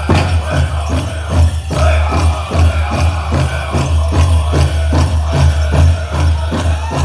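Powwow drum group singing over a big drum, struck in a fast, steady beat of about three strokes a second.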